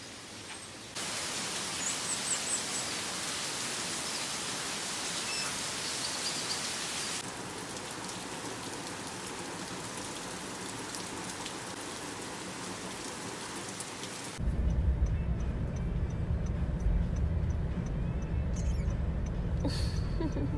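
Steady hiss of rain with a few faint high chirps; the hiss eases slightly about 7 seconds in. About 14 seconds in it cuts to a louder low rumble.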